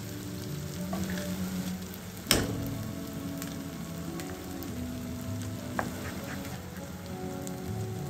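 Egg and chopped tomato and onion sizzling in a pot, with one sharp knock about two seconds in and a lighter click near six seconds, under soft background music.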